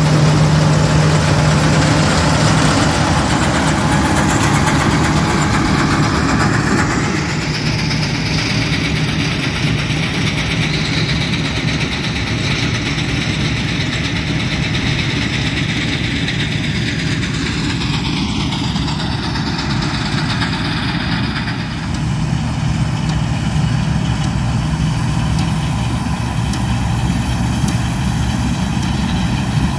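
Farm machinery engines running steadily: first a Renault tractor working a Sipma PS 1225 Fortis round baler, then, after about seven seconds, the engine of a Bizon combine harvester as it harvests.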